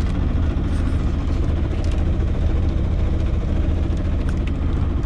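A sailboat's auxiliary engine running at a steady speed while motoring in a flat calm, a constant low drone.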